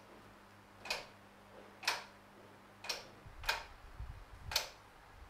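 Faint, sharp ticking clicks at about one a second, over a low hum.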